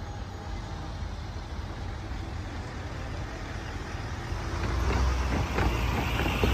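Road traffic starting up at a railroad grade crossing as the gates lift: car and truck engines and tyres, growing louder about four and a half seconds in as a pickup truck rolls over the rails, with a few short knocks as its wheels cross the tracks.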